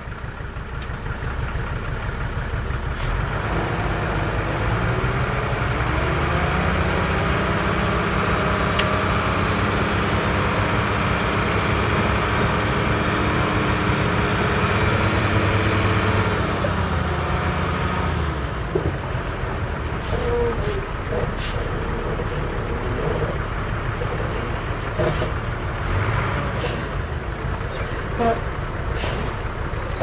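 Motor grader's diesel engine revving up under load, holding steady and loud for about ten seconds, then easing back to a lower speed. Scattered sharp knocks follow in the last ten seconds.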